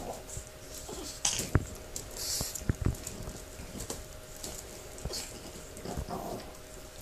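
Two pugs play-wrestling in a wicker dog bed: scuffling on the quilt with short noises from the dogs and a few sharp knocks, the loudest between about one and three seconds in.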